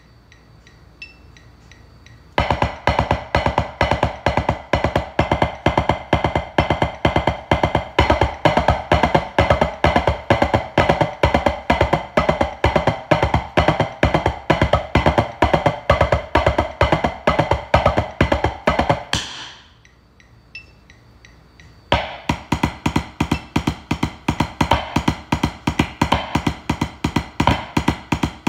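Wooden drumsticks playing a fast, even double-stroke exercise (Academy doubles) on a drum practice pad at 172 bpm. The playing starts about two seconds in, breaks off for a couple of seconds past the middle, then starts again.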